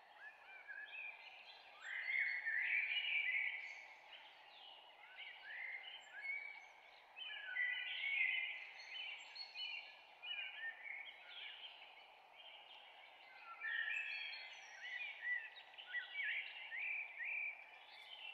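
Many birds chirping and calling at once, their short rising and falling calls overlapping in louder clusters, over a steady background hiss.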